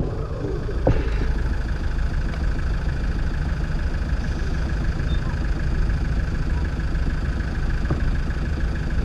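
Road traffic: a motor vehicle's engine idling close by, a steady low rumble, with a faint knock about a second in and another near the end.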